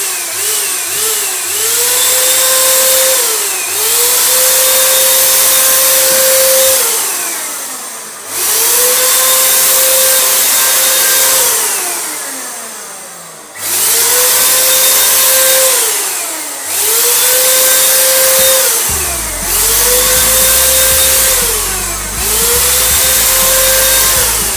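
Dulux Rapid Finish D500 handheld electric paint spray gun running in repeated trigger pulls: the motor whines up to a steady pitch under a loud hiss of air and paint spray, holds two to three seconds, then winds down in pitch on release. This happens about seven times, after a couple of short stuttering blips at the start.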